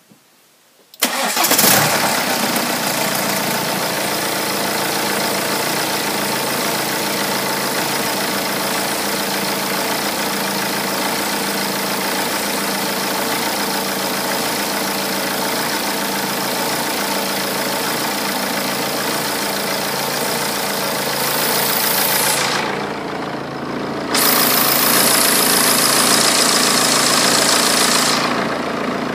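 BMW 118d's 2.0-litre four-cylinder diesel engine starting about a second in and settling into a steady idle. Near the end it runs louder for a few seconds before easing back.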